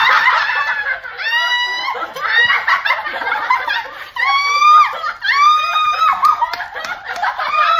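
Young women screaming and laughing together: several long, high-pitched shrieks one after another, with laughter in between.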